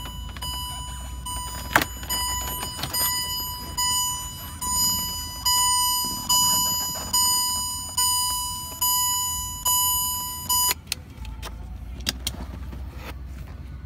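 Range Rover Sport's electronic dashboard warning chime, repeating about once every 0.85 s. Each chime strikes sharply and fades. It grows louder partway through, then cuts off suddenly near the end as the instrument cluster's wiring connector is unplugged. Plastic trim clicks and knocks from handling the cluster sound around it.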